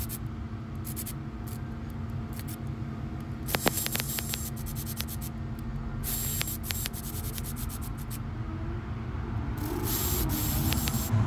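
Cordless electric ratchet running in three short bursts of about a second and a half each, running down the camshaft bearing cap bolts. Light metallic clicks of the socket and bolts fall between the bursts, over a steady low hum.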